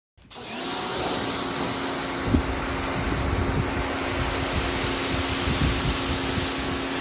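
Electric pressure washer running and spraying: a steady hiss of the water jet over the even hum of its motor and pump. It comes in abruptly just after the start.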